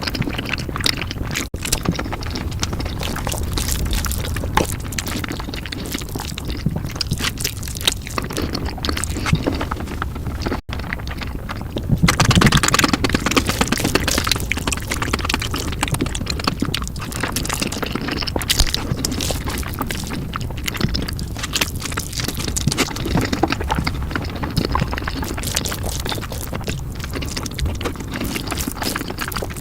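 Close-miked eating of noodles sped up four times: slurping and chewing come out as a dense run of quick wet clicks and smacks, louder for a couple of seconds about twelve seconds in.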